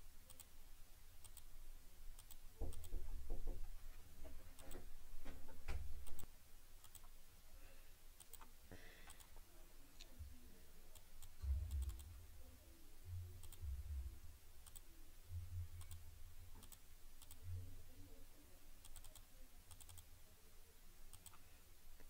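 Faint computer mouse clicks now and then, with a few low dull bumps.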